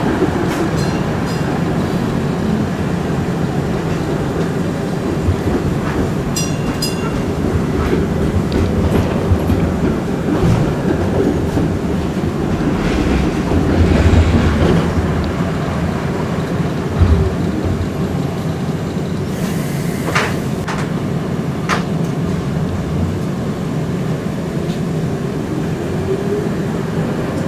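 UTDC/Hawker Siddeley CLRV streetcar running along the track, heard from on board: a steady rumble of wheels and running gear, with sharp knocks over rail joints and a couple of brief high-pitched wheel squeals.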